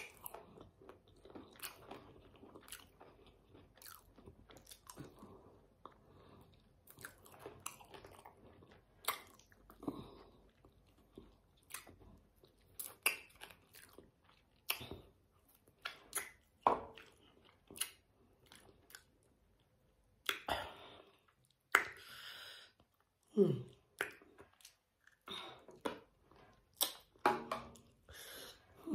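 Close-miked chewing and biting on sauced chicken feet, with irregular crunches and mouth clicks.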